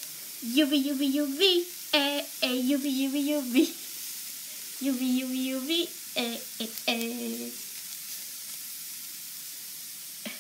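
Shredded cabbage, carrot and onion sizzling in a frying pan with a steady hiss, while a person sings a wavering tune over it in two phrases, starting about half a second in and again around five seconds.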